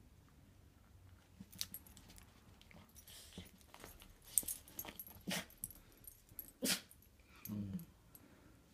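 Small curly-coated dog nosing into a pile of clothes and towels, making a series of short sniffs and fabric rustles, with one lower, slightly longer snuffle near the end.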